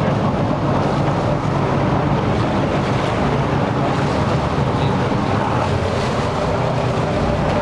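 Steady low rumble of a motorboat engine, mixed with wind noise on the microphone.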